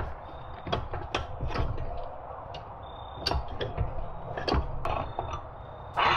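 Hand-lever bead breaker of a mini tire changer being worked against a small ATV tire: irregular metal clicks and knocks as the lever is pumped to push the bead off the rim.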